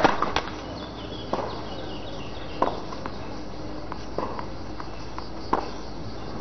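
Tennis ball bounced on a clay court between points: a handful of short, sharp knocks a second or so apart over a steady faint background hiss.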